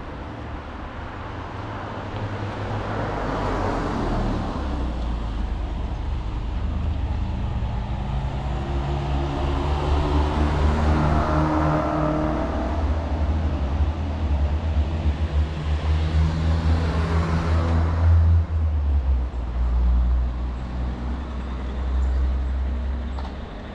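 Road traffic passing close by: several vehicles go past one after another over a low, steady engine rumble, the loudest pass near the end.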